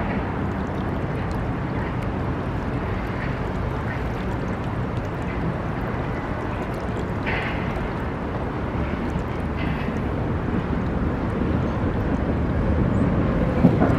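Steady low outdoor rumble of the flooded river and distant city traffic, with a few brief faint high sounds.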